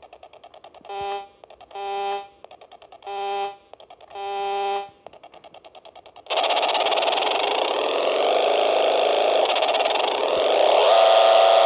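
Vintage Nikko radio-controlled boat, switched on for the first time in 27 years: four short electronic beeps from its sound-effect unit, then its motor starts about six seconds in and runs steadily, with a whine that rises in pitch near the end.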